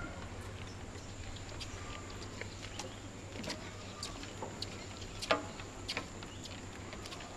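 Footsteps of people walking on the steel walkway plates of a railway truss bridge: irregular light clicks and taps, one sharper about five seconds in, over a faint steady background hum.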